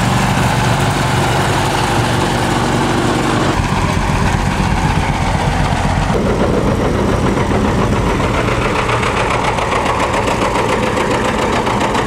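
Antique farm tractor engines running steadily as the tractors drive slowly past one after another; the engine sound changes abruptly a few seconds in and again about six seconds in.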